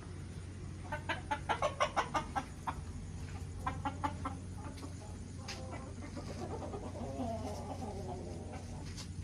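Kadaknath chickens clucking in quick runs of short notes, about five a second, first at around a second in and again near four seconds, followed by a longer wavering call. A steady low hum runs underneath.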